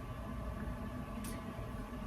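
Quiet room tone: a steady low background hum, with one faint short tick a little past one second.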